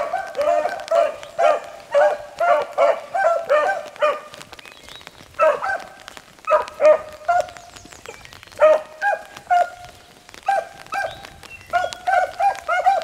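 Several beagles baying on a rabbit's track, running a line through the brush. The cries come fast and overlapping for about four seconds, break off briefly, then resume more spaced out.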